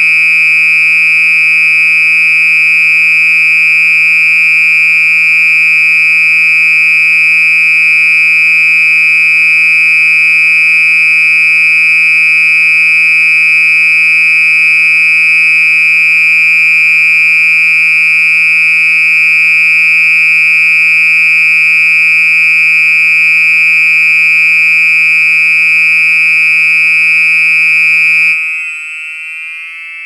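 Older Gentex SHG fire alarm horn strobe sounding a really loud, steady, continuous horn tone. It is powered directly for a test. The tone cuts off a couple of seconds before the end and trails off in a short wavering fade.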